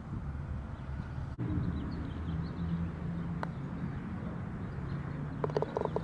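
Open-air background of a steady low rumble with small birds chirping. A single sharp tick comes about three and a half seconds in, and a quick rattle of clicks near the end.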